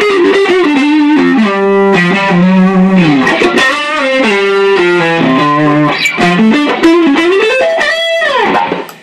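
Electric guitar played through a Cali76 compressor pedal and overdrive, noodling single-note lead lines with bends and slides. The playing stops just before the end.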